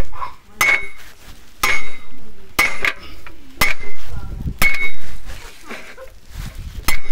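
A heavy hammer driving a barbell-rack post into the ground, striking metal with a ringing clank about once a second. Six blows come in a steady rhythm, then after a pause of about two seconds there is one more near the end.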